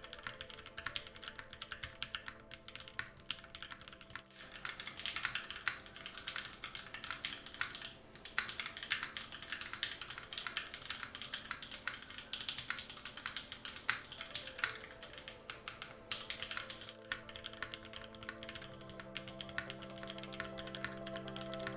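Typing on an o-ring-mounted 60% mechanical keyboard with 43Studio Popus switches lubed with Krytox 205g0, a UHMWPE plate and GMK keycaps: a fast, dense run of keystrokes with a few brief pauses, over soft background music.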